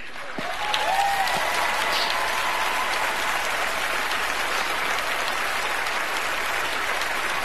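Large theatre audience applauding: a dense wash of clapping that swells over the first second, then holds steady.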